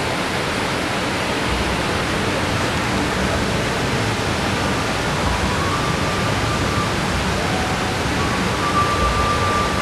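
A steady rushing noise, even throughout, with a faint thin high tone heard twice in the second half.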